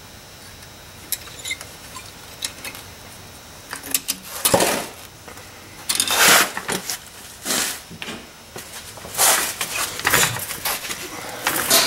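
Metal brake parts clinking and rattling as they are handled and fitted at a front disc brake caliper, in short bursts every second or so from about four seconds in.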